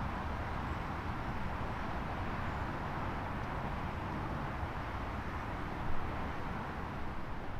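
Steady outdoor background rumble and hiss with no siren tone, and a brief louder bump about six seconds in.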